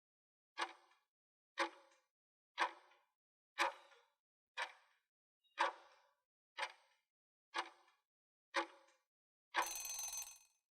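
Countdown-timer sound effect: a clock ticking nine times at one tick per second, ending with a short, longer chime-like burst.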